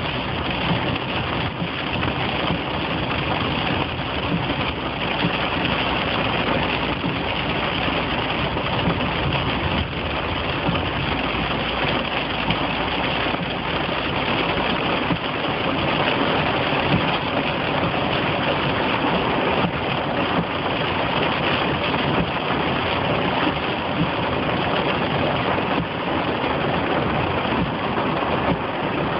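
Steady noise inside a car driving through heavy rain: rain on the roof and windscreen mixed with the engine and tyres on the wet road.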